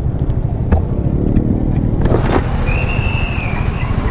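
Motorcycle riding slowly in traffic, recorded from a helmet camera: a steady low rumble of wind on the microphone over the running engine. A brief high wavering tone sounds about three seconds in.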